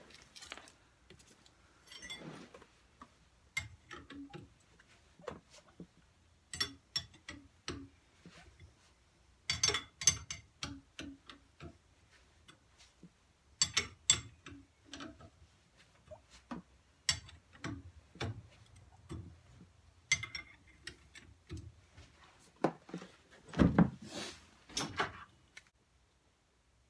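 Metal hand tools clicking and tapping against the front axle and kingpin parts of a Morris Z van, in short runs of sharp clicks every few seconds. A louder knock comes near the end.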